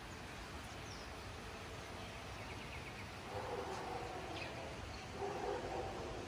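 Outdoor ambience: a faint steady hiss, with a short run of bird chirps about two and a half seconds in and two longer pitched calls in the distance, one a little after three seconds and one near the end.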